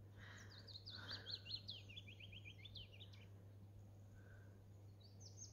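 A songbird singing a fast run of high chirping notes that steps down in pitch over about two and a half seconds, then starts another run near the end. A faint steady low hum lies underneath.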